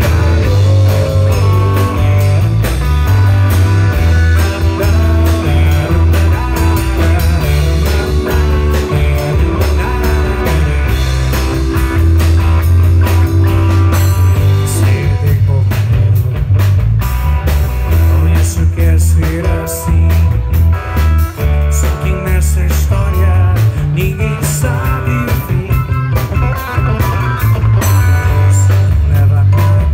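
Live rock band playing: electric guitar, Roland keyboard and drum kit, with a loud low bass line under them.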